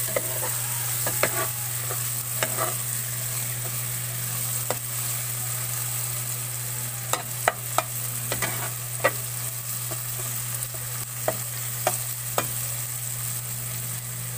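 Chopped garlic, onion and tomato sizzling in oil in a pot while a metal ladle stirs and presses them. Sharp clicks of the ladle against the pot come scattered throughout, over a steady sizzle.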